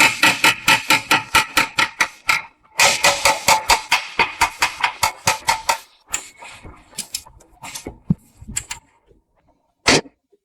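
Rapid hammer blows, about six a second, in two runs of a couple of seconds each, then slower, lighter taps and one last hard blow near the end.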